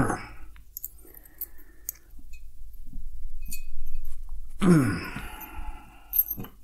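A man groans with effort twice, each groan falling in pitch, the second about five seconds in. He is straining to push a stiff beer hose onto a kegerator tower fitting by hand, and small metallic clinks come from the parts between the groans.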